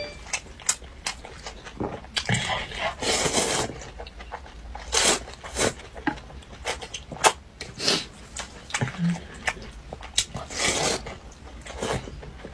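Noodles being slurped from a bowl of broth, in repeated drawn-in bursts of a second or less, with short clicks between.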